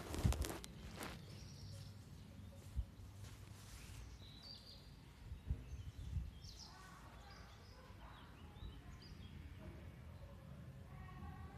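A man's smoker's cough right at the start, then quiet outdoor background with faint high chirps and a few dull low thumps. A faint distant voice comes in near the end.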